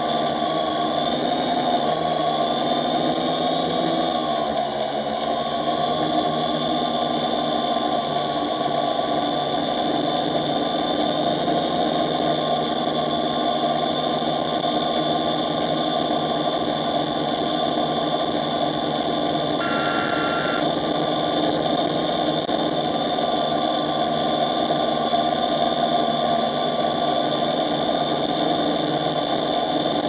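Multirotor drone's motors and propellers whining steadily, with the pitch dipping and wavering briefly about four to six seconds in.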